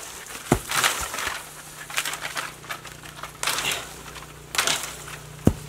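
Green coconuts dropped from a palm tree thudding heavily on the ground, twice: about half a second in and near the end. In between come short bursts of rustling from the palm fronds as the climber works the coconuts loose.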